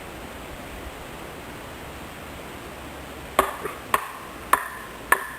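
A steel blade chopping into a damp stick four times, about half a second apart, starting a little over halfway through; each strike leaves a short metallic ring. The wood is being stripped of its wet outside to reach the dry core for kindling.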